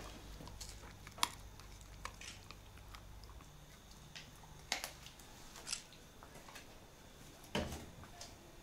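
Husky chewing a hard, long-lasting knot treat: a few scattered crunches and clicks of teeth at irregular intervals.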